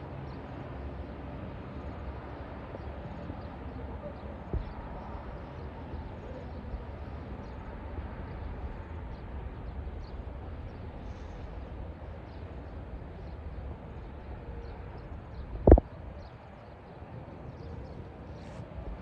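Outdoor ambience: a steady low rumble with faint scattered background sounds, a small knock about four seconds in and a much louder sharp knock about sixteen seconds in.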